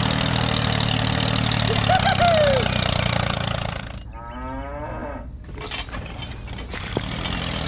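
An engine idles steadily with a low hum. About four seconds in, after an abrupt change, a cow moos once in a long, low call.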